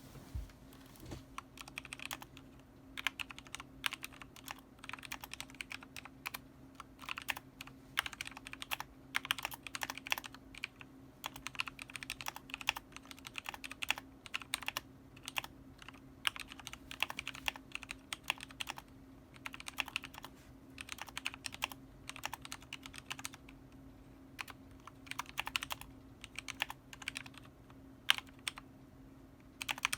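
Typing on a mechanical keyboard whose switches have been lubed with 205g0 grease: fast flurries of keystrokes with short pauses between them.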